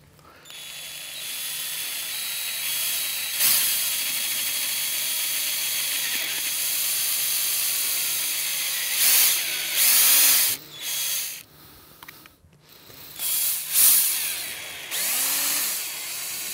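Cordless drill running with its bit pressed into the corroded metal cap on top of a UDSh smoke pot. The drill runs steadily, then stops and starts a few times in the second half.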